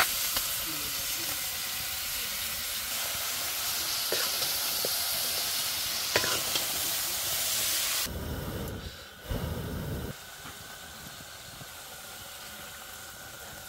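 Chicken curry frying in hot oil in a pan, a loud hissing sizzle that starts suddenly and dies down after about eight seconds. A few dull low knocks follow.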